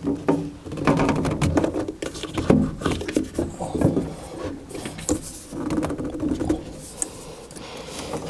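Irregular clunks, knocks and scraping of metal and plastic parts being handled as a gas furnace's draft inducer blower assembly is fitted back into place.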